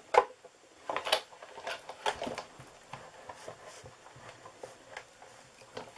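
Sizzix Big Shot die-cutting and embossing machine being cranked by hand, its plastic plates and embossing folder squeezing through the rollers with sharp clicks and creaks, the loudest click about a quarter second in. The sandwich is feeding through tightly.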